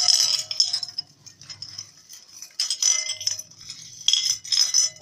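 Gold and silver necklace chains clinking and jingling as they are handled, in three short bursts: at the start, about midway and near the end.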